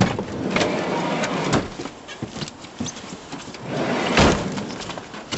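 A minivan's sliding side door and a person climbing in: rustling and knocks, then one loud thud about four seconds in as the door shuts.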